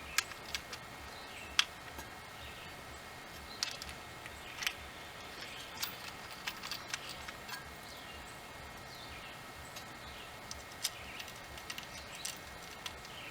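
Scattered, irregular metal clicks and taps of hand tools and hardware as washers and locking nuts are fitted and tightened on the bolts holding a hydrofoil fin to an outboard's lower unit.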